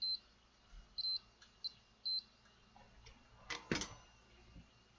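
Multimeter continuity beeper giving four short high beeps as the probes touch board points, the signal of a conducting path or short. A couple of sharp clicks, probe or tool taps, follow about three and a half seconds in.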